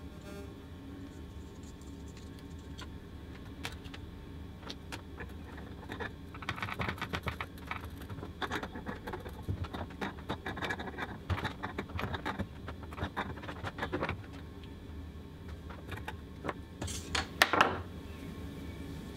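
Small metal clicks and clinks of a spanner and fittings as a pressure sensor is screwed into an air-suspension valve manifold and tightened. A quick run of light clicks fills the middle, and there is a louder knock near the end.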